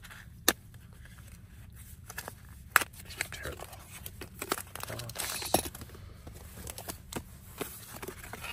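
A small cardboard accessory box being opened and its contents handled: scattered sharp clicks and knocks, with a short rustle of packaging about five seconds in.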